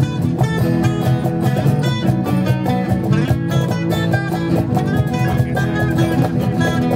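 Instrumental break played on two acoustic guitars, with a cajon keeping a steady beat underneath.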